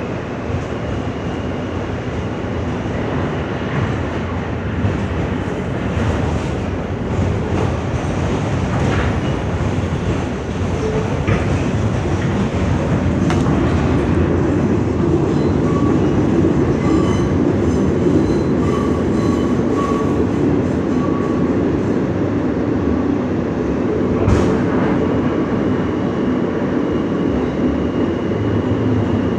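R160 subway car running between stations, its wheels rumbling steadily on the track with occasional sharp clicks. The noise grows a little louder over the first half, and faint high tones from the wheels or running gear come and go in the middle.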